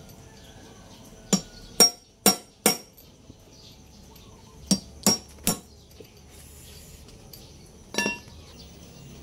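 Hammer striking the steel parts of a disassembled manual transmission, ringing metal-on-metal taps: a run of four about half a second apart, then three more, then a single one near the end.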